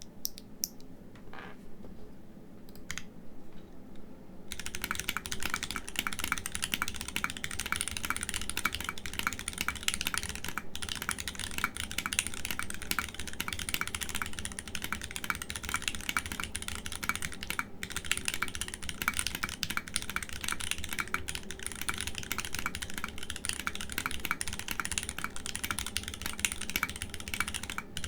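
Typing on a Molly60 v2.5 aluminium keyboard with hand-lubed Gateron x WJBY Long Jing Tea tactile switches (POM housings), O-ring mounted with no foam, under thin ABS blank keycaps. A few scattered single key presses come first, then a dense run of fast keystrokes starts about four seconds in, broken only by two brief pauses.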